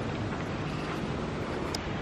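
Steady rushing noise of wind on the microphone and surf.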